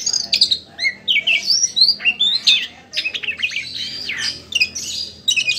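Oriental magpie-robin singing its full song: a fast, near-unbroken run of varied whistles, chirps and sweeping notes, one phrase after another with only short gaps.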